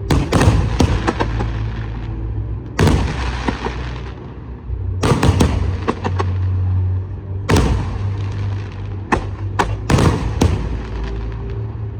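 Aerial fireworks bursting: a series of sharp bangs every two to three seconds, with a quick cluster of several bangs near the end, each trailing off in crackle and echo over a steady low rumble.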